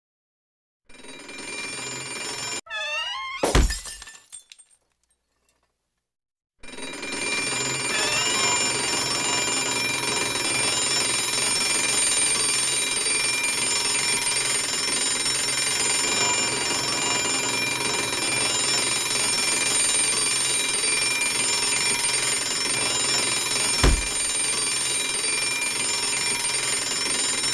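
A crash of something breaking, then a few seconds of quiet, then a mechanical twin-bell alarm clock ringing on and on. The ringing is loud and steady, with a single thump near the end.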